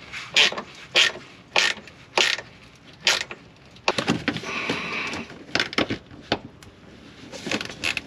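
Ratchet wrench and hand tools clicking and knocking on the heater exhaust clamps. There are short sharp clicks about every half second at first, then scattered knocks, with a brief scraping rustle around four seconds in.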